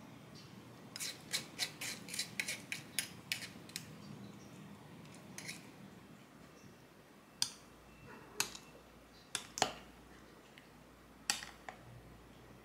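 Metal kitchen utensils clicking against a footed glass dessert cup: a quick run of about a dozen sharp clicks, roughly four a second, about a second in, then scattered single clinks as a metal spoon stirs the cup.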